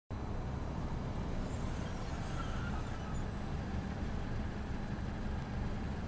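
Steady low rumble of distant city traffic, an even background hum with no single event standing out.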